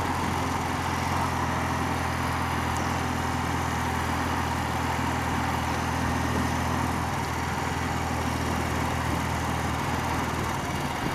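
A thirty-year-old BMW motorcycle's engine running steadily at cruising speed, heard from the rider's seat, under a steady rush of wind noise on the microphone.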